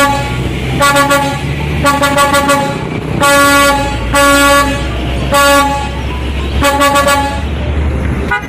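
Truck horn sounding in about eight short blasts, roughly one a second, over the low rumble of a heavy truck's engine.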